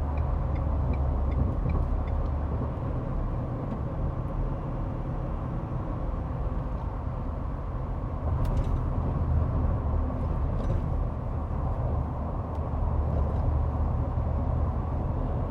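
Ford F-150 Shelby Super Snake Sport pickup cruising, heard from inside the cab: a steady low rumble of tyre and road noise with the supercharged V8's drone underneath.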